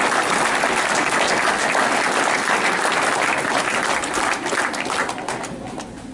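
Audience applauding, the dense clapping thinning to scattered claps and dying away near the end.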